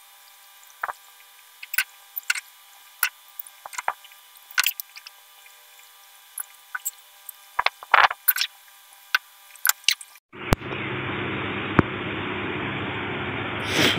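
Wet cement mortar being scooped and worked onto a brick wall: scattered short squelches, taps and scrapes. About ten seconds in the sound cuts to a steady whir of an electric fan running close by.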